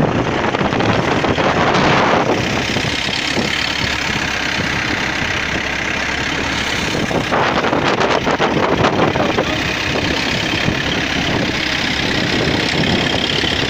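Wooden fishing boat's inboard engine running steadily, with two louder rushes of wind and water noise, at the start and about eight seconds in.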